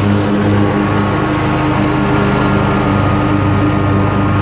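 Commercial Bobcat zero-turn mower running steadily with its cutting deck mowing thick grass as it drives away, a low engine drone with a slow beat in the hum. A thin high whine joins in about a second and a half in.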